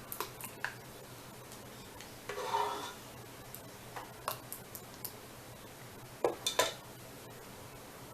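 Kitchen utensils clinking and scraping against glass canning jars while barbecue sauce is filled into them: scattered sharp clinks, a short scrape about two and a half seconds in, and a pair of louder clinks near the end.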